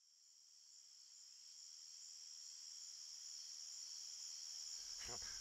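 Crickets chirping in a steady high chorus, fading in from silence and growing louder.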